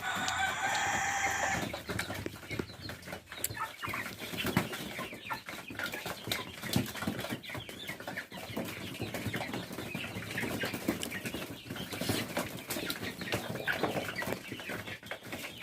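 A flock of Kadaknath chickens clucking and calling. A loud drawn-out call fills the first couple of seconds, then many short clucks and sharp clicks follow.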